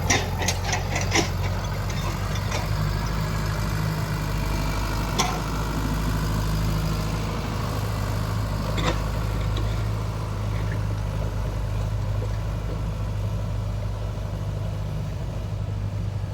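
Heavy diesel engine running steadily at low revs, with a quick run of sharp knocks in the first second or so and single knocks about five and nine seconds in.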